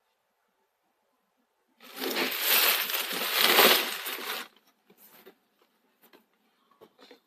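Packaging being handled during an unboxing: a loud crinkling, rustling stretch of about two and a half seconds, then a few faint clicks and taps.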